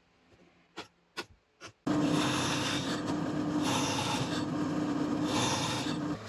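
A few faint pencil ticks, then from about two seconds in a drill press runs with its bit boring through a strip of laminated longboard wood: a steady motor hum under a loud scraping cutting noise that swells a few times as the bit bites.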